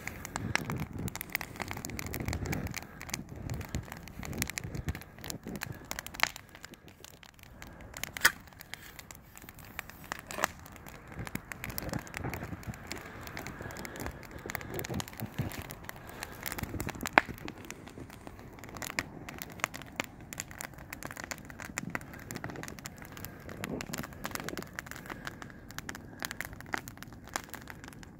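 Wood fire of branches and split logs crackling and popping, with irregular sharp pops and one louder pop about two-thirds of the way through.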